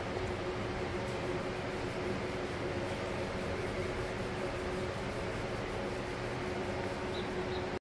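Electric floor fan running steadily: an even rushing noise with a low, steady motor hum.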